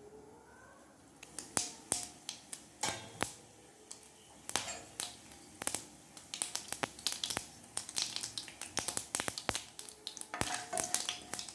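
Mustard seeds popping in hot oil in a frying pan: sharp crackles that start about a second in, sparse at first and coming faster and more often toward the end as the seeds begin to splutter, the sign that the tempering oil is hot enough.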